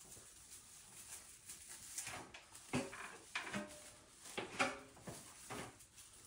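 Plastic deco mesh and artificial pine branches rustling and crinkling in several short bursts while the mesh is scrunched and tied onto the tree.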